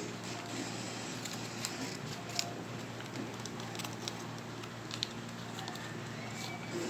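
Small scissors snipping at a plastic packet, with scattered light clicks and handling noise as the blades struggle to cut.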